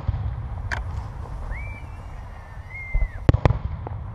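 Aerial fireworks bursting: a bang under a second in, then two sharp bangs close together a little after three seconds and a smaller pop just after, over a steady low rumble. Two short high whistles sound between the bangs.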